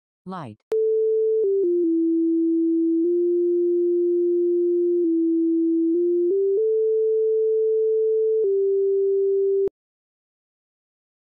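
Seeing AI app's Light feature sounding a steady electronic tone whose pitch follows the brightness the phone's camera sees. The pitch steps down several times, holds low, then climbs back up and steps down once more before the tone cuts off suddenly near the end.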